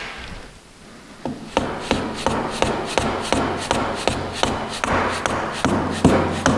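Plastic dead-blow mallet tapping the steel cross pin into a Dana 30 differential carrier, driving it through the spider gears. After a short pause it settles into a steady run of sharp taps, about three a second.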